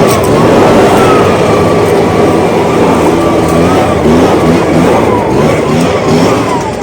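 Echo PB580T backpack leaf blower's two-stroke engine running loudly at high throttle, blowing hard, its pitch rising and falling slightly as the throttle is worked.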